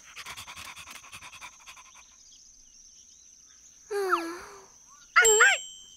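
Cartoon puppy panting in quick short breaths, then a pitched whine about four seconds in and a quick run of yapping barks near the end.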